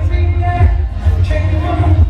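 Loud music with a heavy bass and a steady beat.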